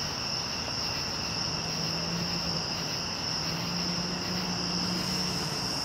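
Crickets chirping in a steady, unbroken high-pitched chorus. A faint low hum joins in about a second and a half in.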